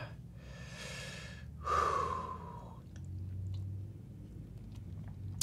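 A man breathing in and out through the burn of a hot pepper he has just eaten, with one louder, falling exhale like a sigh about a second and a half in and a softer breath a little later.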